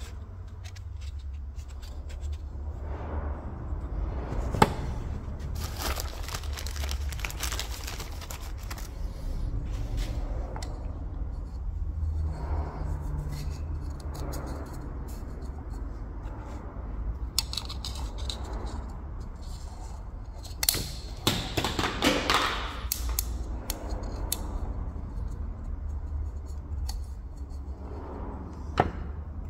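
Handling noise from an oil-filter element and its plastic housing cap being turned over in the hands, with rustling and scraping and a few sharp clicks: one about four seconds in, a cluster about two-thirds through and one near the end. A steady low hum runs underneath.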